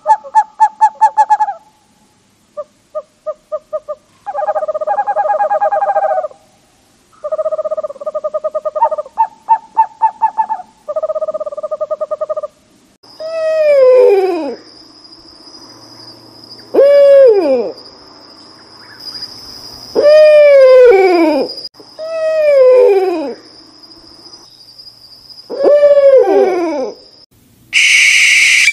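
Owl calls: first a series of rapid trilled, pulsing hoots in separate bursts, then five long wailing calls that rise slightly and slide down in pitch, over a steady high-pitched tone. A brief harsh, hissy call comes just before the end.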